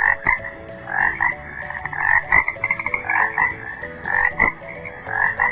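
Frog croaking, a fast series of short croaks repeated all through, over faint background music.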